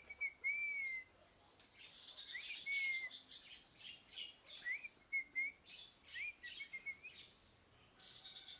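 A parrot chirping: short whistled notes, each a quick upward slide then a level or falling note, come in about four groups, mixed with rapid scratchy chirps.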